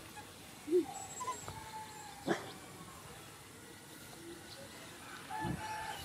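Scattered faint animal calls: a short low call about a second in, a thin drawn-out tone, and a sharp brief call a little after two seconds.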